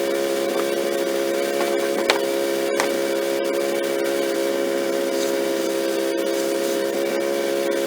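Wood-Mizer LX150 bandsaw mill's engine running at a steady speed, a constant pitched hum with a few light clicks.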